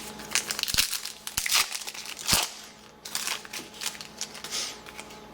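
Trading card pack wrappers crinkling and crackling in the hands as packs are opened and cards are handled, in a string of irregular sharp rustles.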